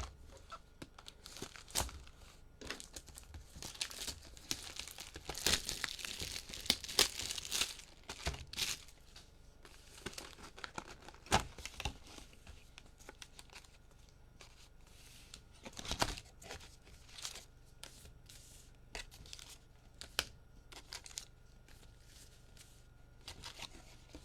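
A sealed trading-card hobby box being opened: plastic wrap tearing and crinkling, heaviest from about four to eight seconds in, with scattered sharp taps and clicks as the box and its packs are handled.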